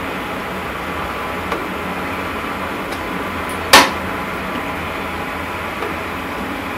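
Steady droning background noise with a faint hum in it. A single sharp, loud click cuts across it a little under four seconds in.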